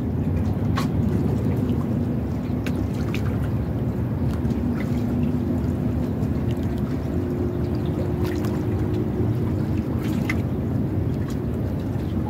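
Seawater sloshing and trickling among concrete breakwater blocks over a steady low rumble, with a faint hum coming in midway and scattered small ticks.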